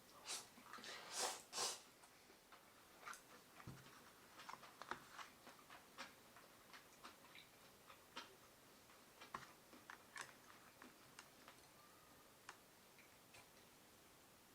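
Quiet eating sounds: scattered small clicks and taps of chopsticks and tableware against a bowl of chilled ramen with ice. A few louder noisy rustles come in the first two seconds.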